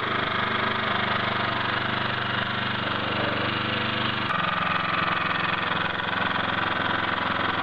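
Craftsman 16-inch, 21-blade lawn dethatcher with its small four-stroke engine running steadily while the machine is pushed across the lawn. The engine's tone changes abruptly about four seconds in.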